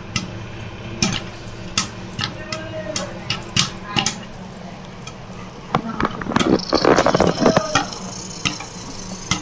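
Popcorn kernels popping in a pan under a glass lid: scattered sharp pops, then a quick flurry of pops about six seconds in.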